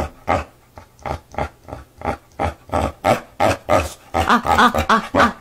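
Boxer dog "talking": a run of short vocal sounds, about two to three a second, growing louder and more tuneful near the end, the dog's answer to its owner's "I love you".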